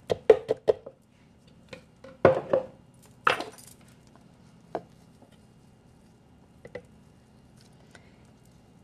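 Scattered knocks and clatters of a silicone spatula and hand working sticky wheat-gluten dough in a plastic food processor bowl, with a brief scrape about three seconds in. Only a few faint clicks follow.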